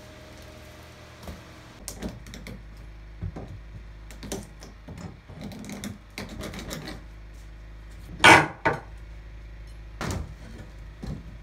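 Hammer and pry bar working loose 120-year-old hardwood floorboards: scattered taps, scrapes and wooden knocks, with one loud sharp strike about eight seconds in and another about ten seconds in.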